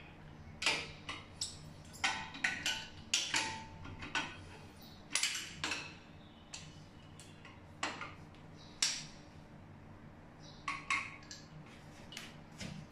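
Irregular metallic clicks and clinks of a spanner and hands on a chrome shower mixer as it is tightened onto its wall connectors, some strikes ringing briefly; a lull of a second or two comes before a last cluster of clicks near the end.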